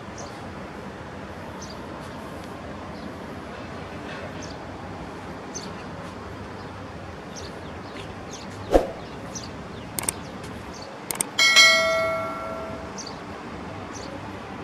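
A metal object struck once with a loud clang that rings and fades over about a second and a half, a few seconds after a single sharp thump, over a steady outdoor hiss with faint short high chirps.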